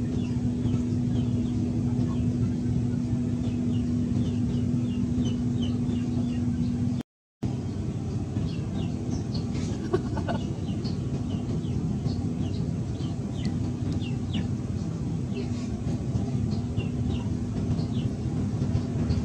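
Birds chirping in many short, high, falling notes over a steady low hum. The sound cuts out for about half a second around seven seconds in.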